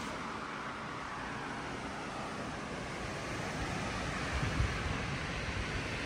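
Blizzard wind blowing steadily, with a gust buffeting the microphone about four and a half seconds in.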